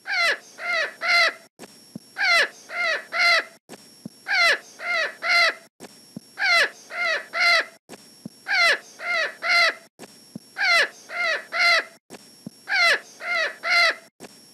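A bird calling in sets of three short calls, seven sets about two seconds apart, the same recording looped.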